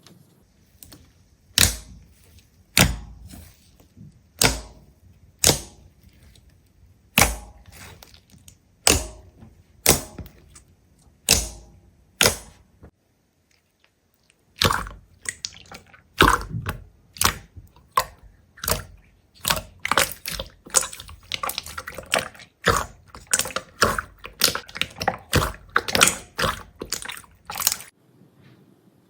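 A series of sharp knocks or taps, about one a second at first; after a short pause they come quicker and closer together, then stop near the end.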